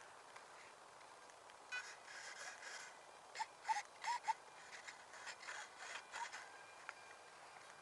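Irregular bursts of rustling and scraping from a small foam model plane being handled, the loudest in the middle, with a few faint short chirps among them.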